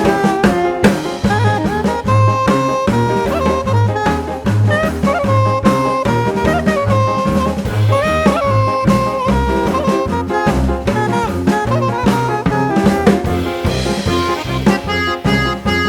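Background music: an upbeat jazzy tune with saxophone-like lead melody over drums and a walking bass pulse.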